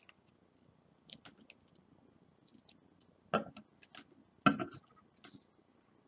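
Small clicks and taps of nail-stamping tools being handled and set down on a tabletop, with two louder knocks around the middle.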